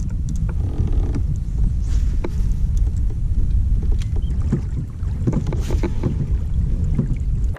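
Wind buffeting the microphone of a camera mounted on a fishing kayak: a heavy, unsteady low rumble, with scattered light clicks and knocks.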